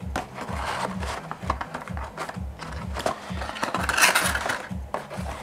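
Cardboard box and plastic packaging of a boxed gaming mouse being handled and rustled as it is unpacked, with small clicks and scrapes and a louder rustle about four seconds in. Background music with a steady low beat plays underneath.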